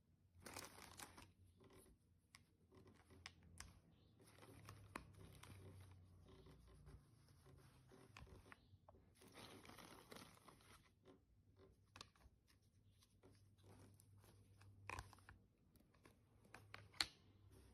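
Faint rustling and crinkling of plastic packaging being handled, with scattered small clicks and taps.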